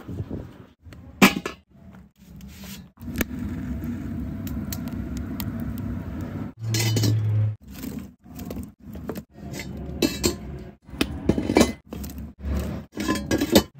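Wood fire burning and crackling in a metal stove, with knocks and scrapes as split firewood is pushed in. The sound breaks off abruptly and changes every second or so.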